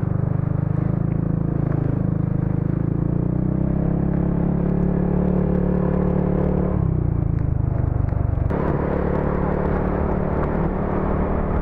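Yamaha XMAX 300 scooter's single-cylinder four-stroke engine running under way, a steady hum whose pitch creeps up, then drops about seven seconds in and shifts again a moment later as the throttle changes.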